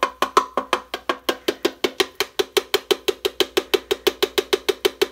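Rapid, evenly spaced clicking, about seven clicks a second, each with a short ringing note, keeping a steady mechanical rhythm.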